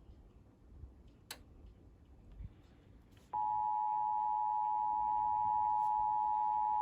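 Emergency Alert System attention signal: a loud, steady two-tone alarm (853 and 960 Hz together) that starts about halfway in, after a few seconds of faint hiss with a single click. It is the alert tone announcing a severe thunderstorm warning.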